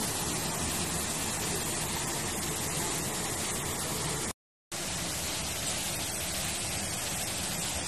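Steady, even rush of a waterfall pouring into a rock pool, broken once about halfway by a brief moment of silence.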